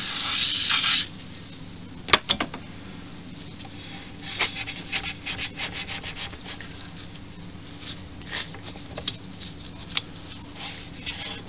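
An aerosol spray hisses for about the first second and cuts off suddenly. Then a rag rubs and wipes along the metal rails of a lathe bed, with scattered light clicks and a sharp knock about two seconds in.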